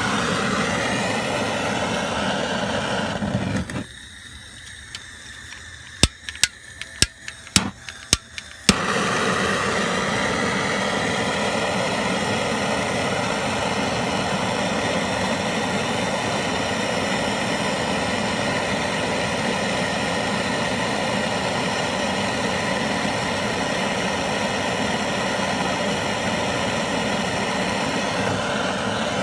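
Trigger-start propane plumbing torch burning with a steady hiss. The flame goes out about four seconds in, then about six sharp clicks of the trigger igniter come before the flame catches again near nine seconds and burns steadily on.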